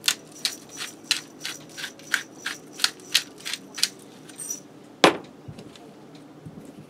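Hand-twisted pepper mill grinding peppercorns, a sharp crunching click with each twist about three times a second, a dozen or so in all. About five seconds in, a single loud knock as the mill is set down.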